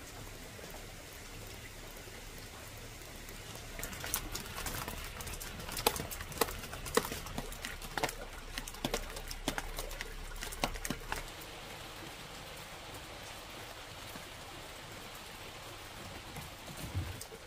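Rain falling steadily, with a run of sharp drop taps between about four and eleven seconds in.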